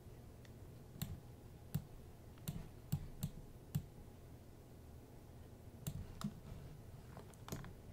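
Computer mouse and keyboard clicking: about ten sharp, separate clicks at irregular intervals, with a pause of about two seconds in the middle, over a faint low hum.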